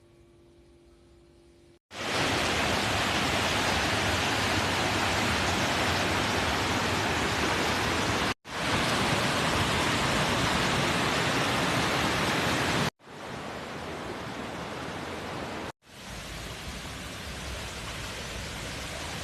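Steady rush of a waterfall's falling water, in four separate clips joined by abrupt cuts, starting about two seconds in; the last two clips are quieter than the first two.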